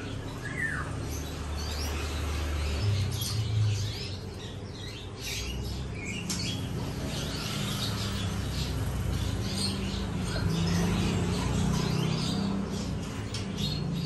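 Caged black-winged mynas (jalak putih) chirping and whistling, many short calls overlapping throughout, over a low steady hum.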